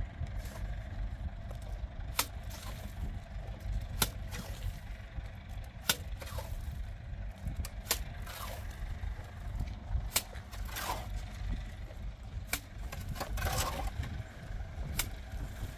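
Hand tools at work: a sharp knock about every two seconds and a few short scrapes, over a steady low rumble.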